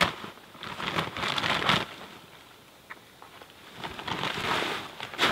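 A bag of pea gravel being handled and torn open: rustling, crinkling noise in two spells, quieter in between, the second spell growing louder near the end.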